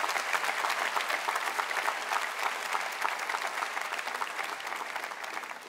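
Large audience applauding, a dense patter of many hands clapping that slowly dies away.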